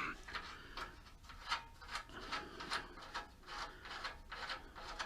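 Repeated rasping metal strokes, about two or three a second, as a bolt on a 1973 Ford Bronco's front bumper is worked loose.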